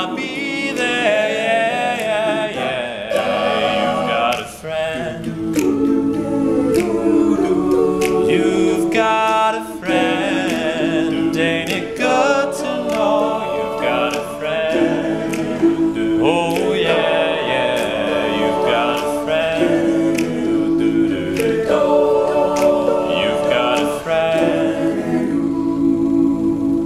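All-male a cappella group singing in close harmony, without instruments, ending on long held chords.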